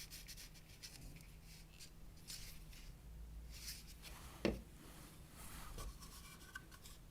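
Quiet handling of a cordless vacuum cleaner's plastic filter and housing parts: soft rubbing, with one sharp plastic click about four and a half seconds in.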